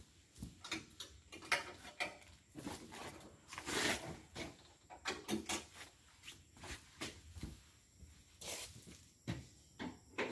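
Scattered light knocks, clicks and rustles, a few to each second, from someone handling things and moving about close to the microphone.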